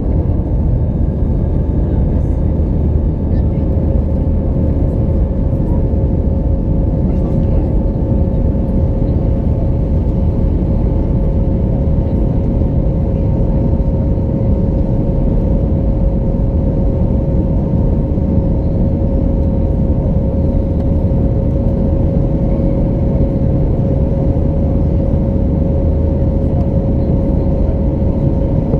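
Airbus A319 cabin noise during the climb after takeoff, heard at a window seat over the wing: a steady, loud roar of the engines and airflow with a steady engine whine running through it.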